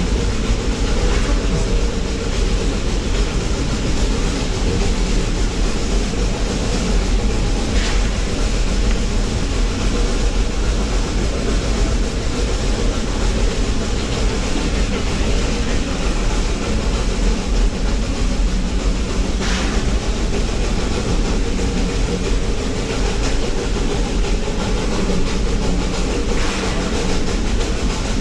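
Steam-hauled train rolling steadily along the track, a continuous low rumble with about three faint brief clicks from the rails.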